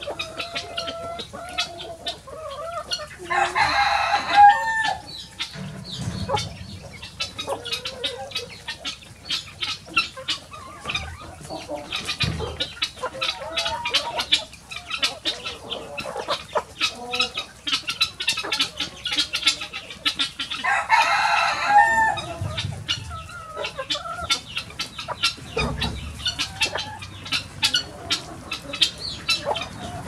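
A flock of hens clucking and chattering steadily, with a rooster crowing twice: once about four seconds in and again about two-thirds of the way through.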